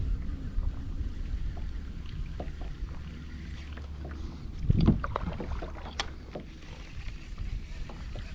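Kayak drifting, with a steady low rumble of wind and water against the hull, a few light clicks and one louder thump about five seconds in.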